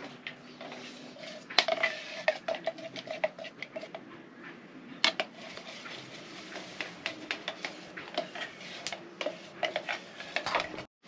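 A stirring stick knocking and scraping against the inside of a can of primer as it is mixed, giving many irregular clicks, some with a brief ring.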